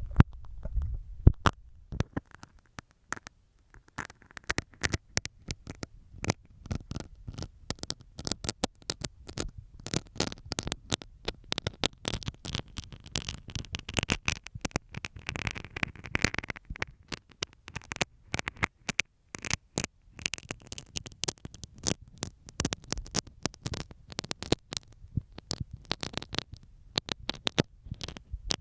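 Utility knife blade scratching and tapping over masking tape close to the microphones: a dense, irregular run of small clicks and scratchy ticks, sparser about two to four seconds in.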